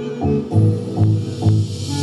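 Background music with a steady beat, about two low pulses a second under sustained pitched notes.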